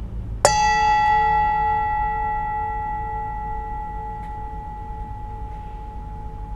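Small brass singing bowl struck once, about half a second in, then ringing on with several steady tones that slowly fade; the lowest tone pulses in a slow wobble.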